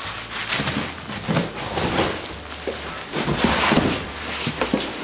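Plastic wrapping crinkling and rustling as a plastic-wrapped table saw is pulled out of its cardboard box. The rustling is loudest about three and a half seconds in.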